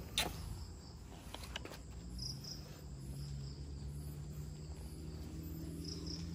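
Faint insect chirping, typical of crickets: a steady high trill with short paired chirps twice, over a low steady hum, with a few soft clicks in the first two seconds.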